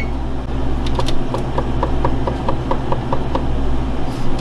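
Electric oven touch-panel controls being pressed to set the bake temperature: one short high beep, then a quick run of short pips, about six a second, as the set temperature counts up. A steady low hum runs underneath.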